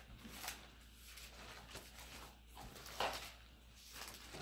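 Pages of a Bible being turned while leafing through it: soft paper rustles about a second apart, the loudest about three seconds in.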